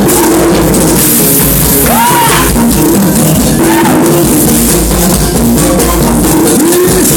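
Loud recorded music with a singing voice, drums and heavy bass, played back over a sound system.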